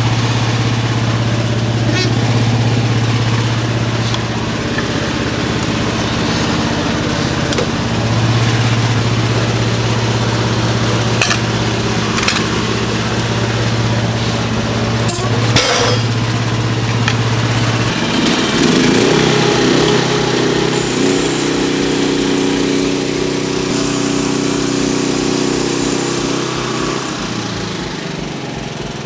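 Sawmill's small engine running steadily at a low speed, then speeding up about 18 seconds in to a higher, busier note that holds for several seconds before dropping back near the end. A few sharp clicks are heard along the way.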